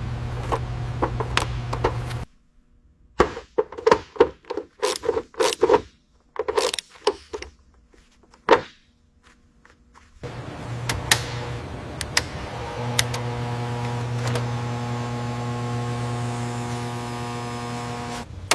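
A small motor hums steadily, then stops. A series of separate clicks and knocks follows, like parts being handled and fitted. Then the motor runs again with a steady whirring hum.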